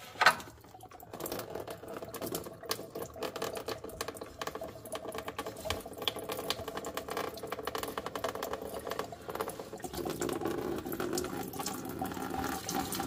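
Engine coolant draining from a disconnected hose at the thermostat housing of a BMW N55 cooling system, a thin stream pouring and splattering into a plastic drain pan. A sharp knock sounds right at the start.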